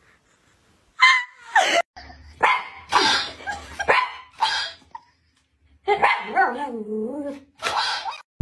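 A dog barking in a string of short yelps, then a longer wavering whine about six seconds in.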